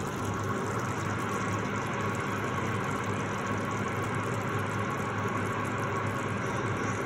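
Chicken curry simmering and bubbling in a pan, heard as a steady hiss over a low, even hum.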